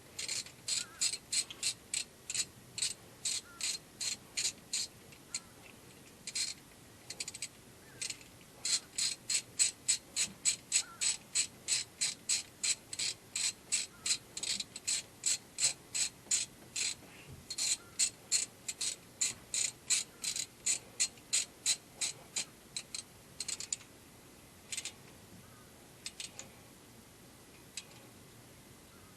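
Hand ratchet wrench clicking in a steady run, about three clicks a second, as a spark plug is turned, with a short break about six seconds in and a few scattered clicks near the end.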